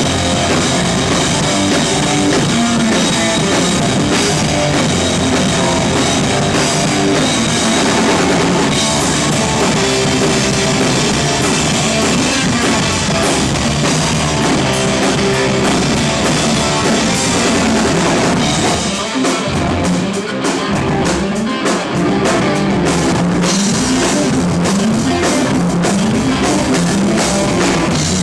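Rock band playing live, with electric guitar, bass and a full drum kit. About two-thirds of the way in, the low end thins out for a few seconds, then the full band comes back in.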